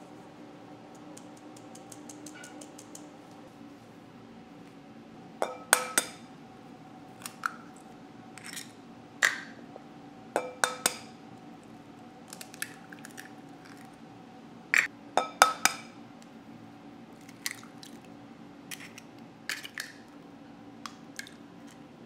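Eggs cracked one after another against the rim of a glass bowl: a series of sharp taps with a short glassy ring, often two or three close together, over a faint steady hum. Near the start there is faint light ticking from a mesh sieve of flour being sifted.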